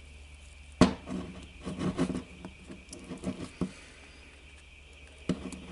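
Screwdriver prying and scraping at the gasket seam of a diamond core drill's gear housing: a sharp metal click about a second in, then scattered light taps and scrapes, and another click near the end.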